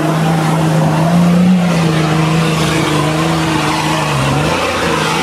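Nissan Patrol Y60's engine working hard at high, steady revs under load on a steep muddy climb, the revs dipping briefly about four seconds in.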